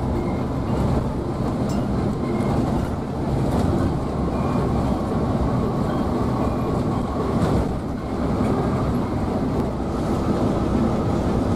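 Cabin noise inside a Scania K360iB coach cruising on a highway: a steady low rumble of engine and tyres, with a few faint light rattles.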